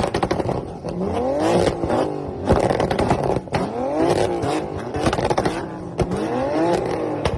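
A modified car engine revved three times, its pitch rising and falling with each rev, with sharp popping and crackling from the exhaust as the revs drop between blips.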